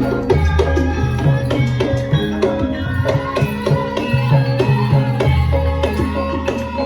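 Javanese gamelan music for a Lengger dance: struck metallophones ringing in a steady melody over hand-drum strokes and sustained low tones.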